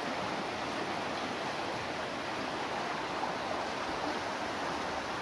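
Fast-flowing river rushing over rocks, a steady wash of water noise.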